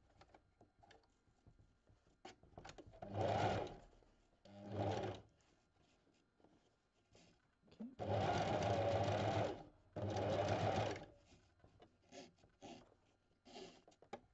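Domestic electric sewing machine zigzag-stitching over a cord in stop-start runs: two short bursts, then two longer runs of about two seconds each in the second half. Pauses with small clicks come between the runs, while the fabric is pivoted around tight curves.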